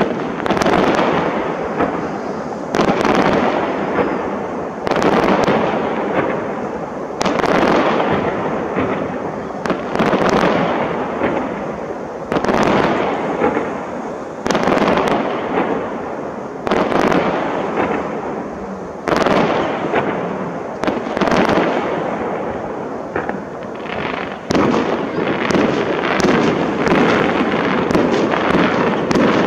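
Fireworks display: a loud bang about every two seconds, each trailing off slowly, with the bursts crowding together into denser crackling near the end.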